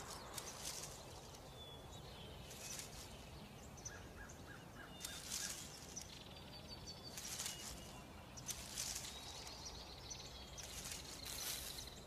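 Faint forest ambience: soft rustles every couple of seconds and a few short, high bird chirps over a quiet background hum.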